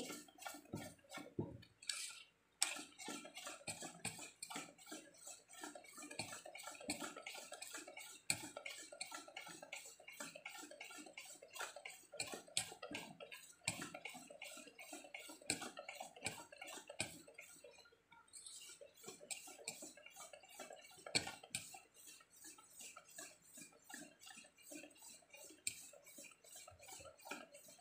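Wire whisk beating thick batter in a stainless steel bowl, the wires clicking against the metal about three to four times a second, with brief pauses about two seconds in and near eighteen seconds.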